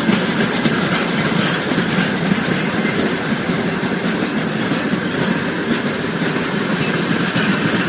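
Freight train of loaded open wagons rolling past close by: a steady rumble with wheels clattering over the rail joints.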